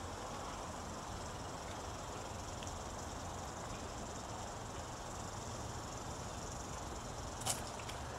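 Steady, quiet outdoor background hiss, with one sharp click about seven and a half seconds in.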